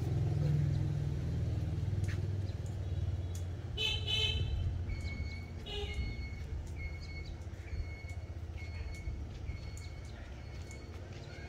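Outdoor background: a steady low rumble, with a short high horn-like toot about four seconds in and another about six seconds in, then a faint high beep repeating a little faster than once a second.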